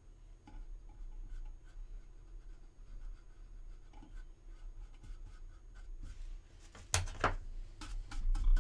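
Fingertip rubbing powder into a seam on a resin model part: a faint, irregular scratchy rubbing. About seven seconds in there is a louder scrape, and near the end a run of quick taps as a brush goes over the seam.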